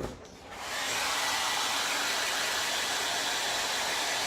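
Handheld hair dryer (blow dryer) switched on about half a second in and running with a steady, even hiss, just after a short knock.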